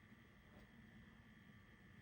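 Near silence: faint steady hiss and hum from VHS tape playback.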